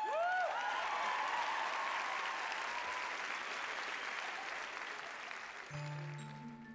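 Audience applauding and cheering, with a few whoops at the start, dying away gradually over about five seconds. Music starts up near the end.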